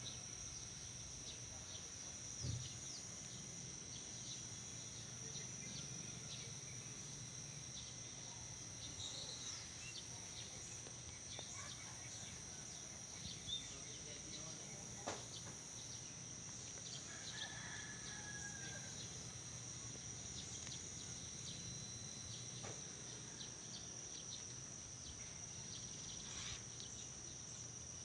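Steady high-pitched drone of insects such as crickets, with a few faint clicks and a brief chirp about two thirds of the way through.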